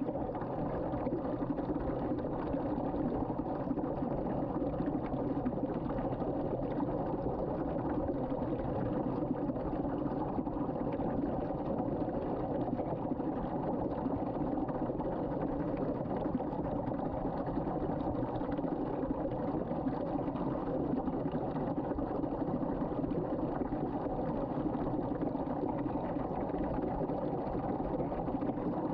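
Water spiralling down a sink drain in a whirlpool vortex, with a steady rushing and swirling noise.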